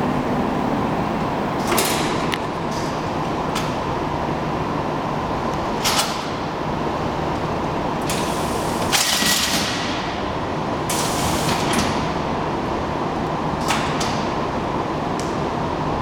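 Horizontal strapping machine running: a steady mechanical hum with a faint whine, broken every few seconds by sharp clacks and a few short hisses.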